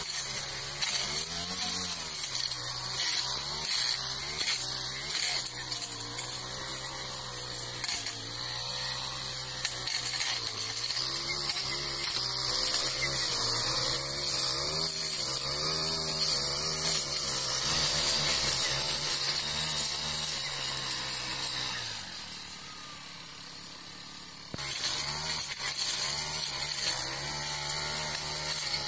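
Honda GX four-stroke engine of a backpack brush cutter running at working speed while its metal blade cuts through brush, the engine note wavering under load. Near the end it drops quieter for about two seconds, then comes back abruptly.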